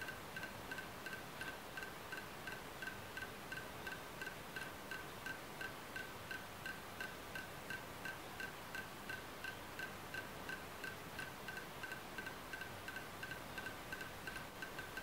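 A short high pip repeating steadily about four times a second over a faint hiss.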